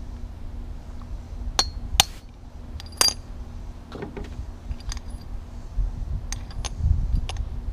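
A steel punch clinking against a mower deck spindle housing and its bearing: a handful of irregular sharp metallic taps, the loudest about two and three seconds in, as the bearing is driven out. Under them runs a low rumble.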